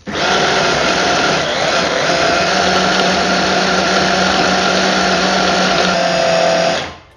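Mini food processor, a stick-blender motor mounted on a small chopper bowl, running steadily for about seven seconds as its blade cuts cold butter into flour for shortcrust pastry. It starts at once and cuts off abruptly just before the end.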